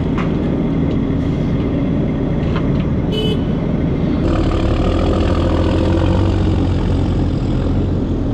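Heavy diesel earthmoving engine running steadily and loud, working a little harder from about four seconds in. One short horn beep sounds about three seconds in.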